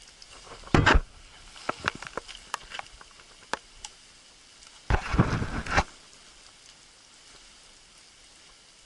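Branches and brush scraping and rustling against the person and close to the microphone while pushing through dense undergrowth, in two louder rushes about a second in and about five seconds in, with scattered sharp twig cracks and clicks between them.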